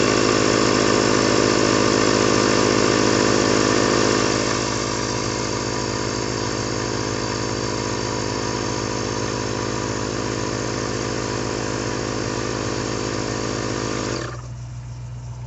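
Husky portable digital tire inflator's compressor running steadily as it pumps up a car tire. It gets a little quieter about four seconds in, then shuts off abruptly near the end as the tire reaches the 34 psi it is set to.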